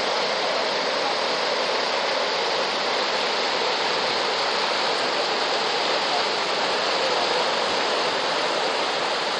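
Water rushing over a river weir and down its stone boat chute: a steady, even rush of white water.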